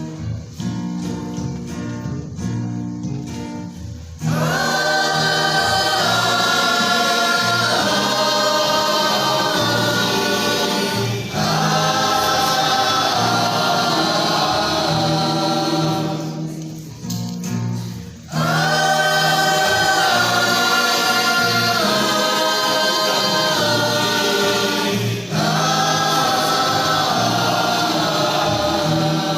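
Church choir singing a Christian song with instrumental accompaniment. An instrumental introduction gives way to the full choir about four seconds in, with brief breaks between phrases.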